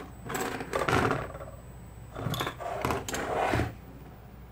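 Clicking and scraping of a computer motherboard and its metal support standoffs being handled and turned on a wooden desktop, in about four short bursts.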